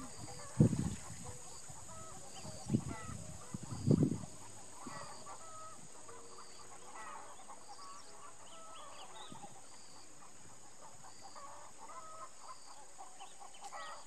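Poultry calling off and on, with three dull thumps in the first four seconds and a faint steady high tone throughout.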